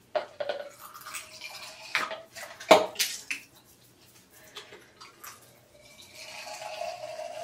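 Liquid makeup remover poured from a large plastic bottle into a small plastic travel bottle: a few sharp plastic clicks and taps of the bottles and cap, then a steady trickle of liquid filling the small bottle in the last couple of seconds.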